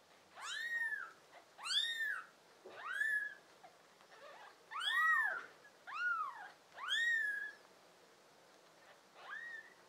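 Newborn kittens mewing: about seven high, thin cries, each rising then falling in pitch and lasting under a second, with two kittens crying at once about five seconds in.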